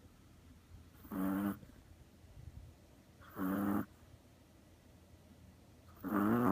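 Chihuahua snoring in deep sleep: three short, pitched snores about two and a half seconds apart, with faint breathing between them.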